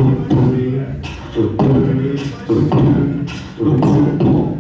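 Beatboxing into a handheld microphone: a hummed vocal bass line punctuated by sharp percussive mouth clicks in a repeating beat.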